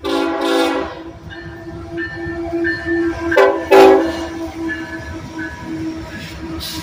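BNSF diesel locomotive horn giving short toots, a pair right at the start and a louder pair a little over three seconds in, as the lead units pass close by with their engines running. The toots are the crew's friendly acknowledgement of the trackside watcher.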